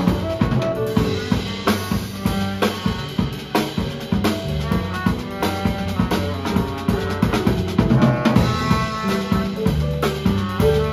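Live jazz with the drum kit out front: sticks on snare, cymbals and bass drum in a busy pattern over a double-bass line, with short melodic notes above.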